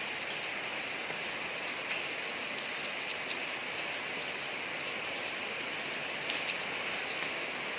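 Steady rain falling on a street: an even hiss, with a few sharper drop ticks standing out.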